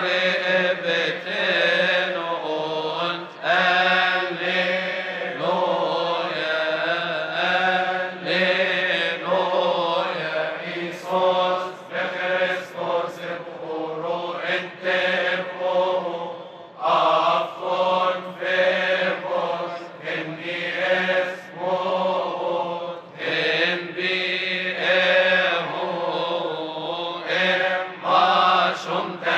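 A Coptic Orthodox deacons' choir of men and boys chants a liturgical hymn together in long, winding melodic lines, with a steady low tone held underneath.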